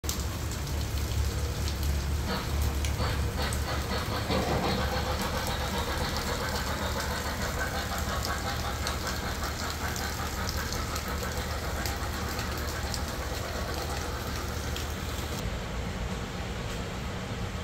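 MTH 1 gauge model of the Southern Pacific GS-4 steam locomotive running on its track: a steady low rumble with many small ticks, heard in the rain.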